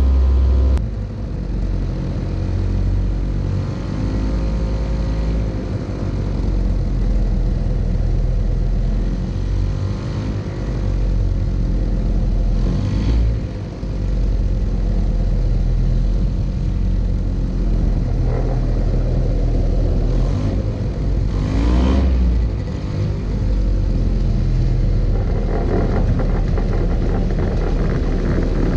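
Belite ultralight's Hirth F23 50 hp two-stroke twin engine driving its Warp Drive propeller, with a steady drone whose pitch rises and falls several times with power changes. Near the end a rougher rumble joins in as the aircraft rolls on grass.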